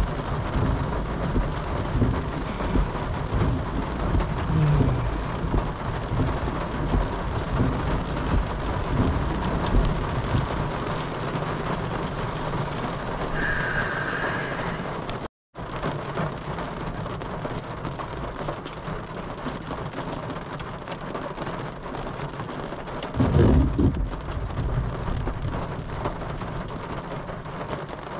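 Heavy rain mixed with small hail drumming on a vehicle's roof, heard from inside, with dense knocking in the first half. The sound cuts out for a moment about halfway, and late on a low rumble of thunder rises above the rain.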